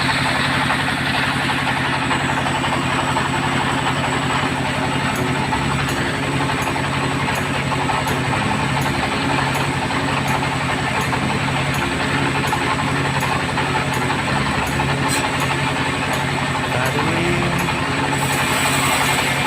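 Sawmill bandsaw machinery running steadily, a continuous engine-like hum with a dense mechanical noise over it.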